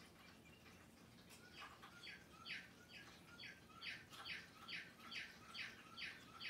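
Faint calls of a small bird: a string of short, evenly repeated notes, about two or three a second, starting about two seconds in.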